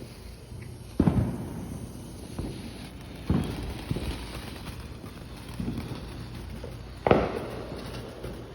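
Consumer fireworks going off: a string of sharp bangs, the three loudest about a second, three seconds and seven seconds in, with smaller pops between them.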